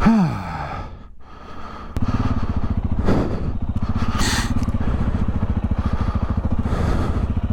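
Motorcycle engine starting up about two seconds in and then idling steadily with an even, fast pulse. A brief falling sound comes before it at the very start.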